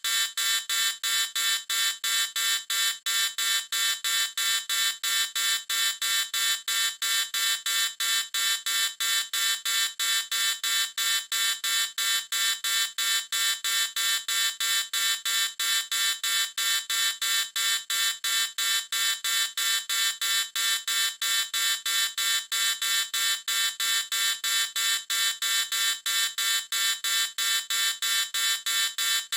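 Electronic alarm beeper sounding continuously: a rapid, high-pitched beep repeating about three times a second without change.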